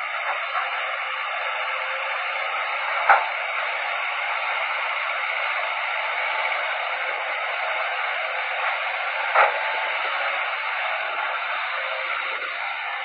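Steady hiss like radio static, confined to a middle band with no low rumble, broken by two sharp clicks about three seconds in and again near nine and a half seconds.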